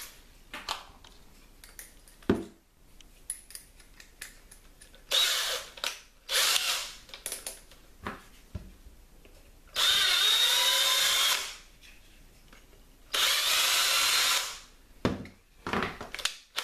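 Cordless drill running in short bursts, drilling a hole through the plastic jaw of a spring clamp. Two brief trigger pulls, then two longer runs of about a second and a half each with a steady whine, and a few quick bursts near the end.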